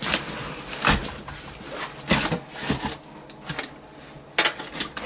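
Cardboard shipping box being handled and opened by hand: irregular rustles, scrapes and sharp clicks, the loudest about a second in and again near the end.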